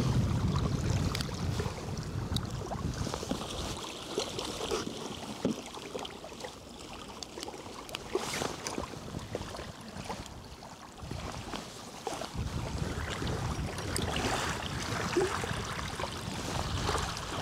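Wind rumbling on the microphone in gusts over the lapping of small waves on a stony shore. The low rumble dies away a few seconds in and picks up again about twelve seconds in.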